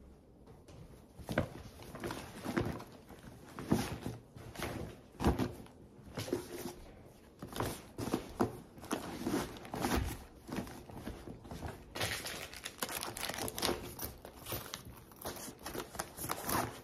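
Rustling and crinkling of things being packed into a canvas tote bag: a neck pillow, a hardback book and a fabric pouch are pushed in, with soft knocks against the bag. The handling grows busier in the second half.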